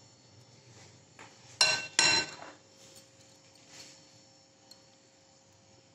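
Two sharp clinks of tableware about half a second apart, with a brief ringing tail, as a serving spoon and dishes knock together, followed by a few faint knocks.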